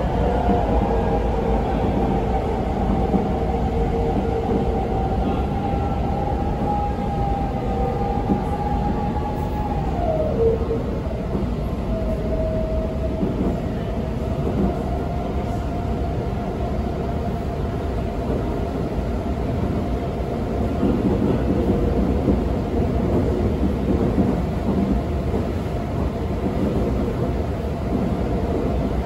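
Metro train running between stations: a steady rumble of wheels on rail under the whine of the traction motors. The whine glides down in pitch about ten seconds in, then holds steady.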